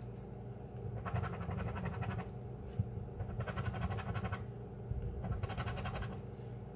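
A dollar coin scratching the coating off a scratch-off lottery ticket, in several bouts of quick rasping strokes about a second long with short pauses between them.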